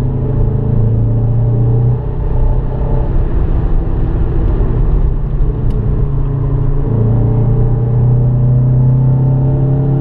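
Renault Clio RS 172's 2.0-litre four-cylinder engine pulling hard under acceleration, heard from inside the cabin. The revs climb steadily, with a brief dip about two seconds in.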